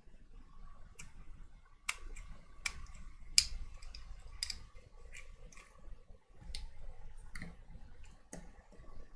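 Irregular small clicks and knocks of plastic parts of a water mister being handled and fitted together during reassembly, about ten in all, the sharpest about three and a half seconds in.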